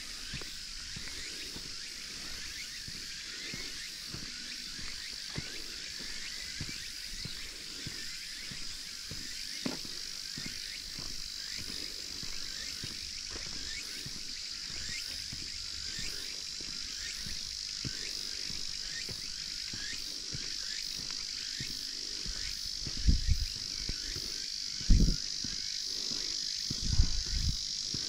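A steady, high chorus of summer insects with many short rising chirps over it. A few low thuds come near the end and are the loudest sounds.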